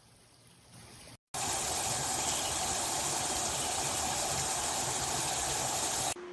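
Shower head spraying water: a loud, steady hiss of running water that starts abruptly about a second in and cuts off near the end.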